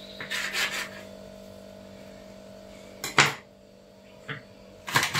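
Kitchen knife cutting through soft bread dough and scraping on a stone countertop, then sharp knocks on the counter, the loudest about three seconds in and another near the end, over a steady low hum.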